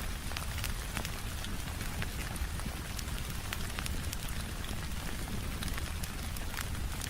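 Steady rain mixed with a crackling fireplace: an even hiss of rain over a low rumble, with scattered sharp pops and crackles throughout.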